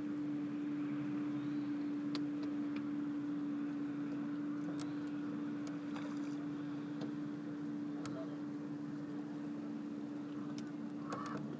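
Boat motor running steadily at trolling speed, a constant even hum, with a few faint clicks over it.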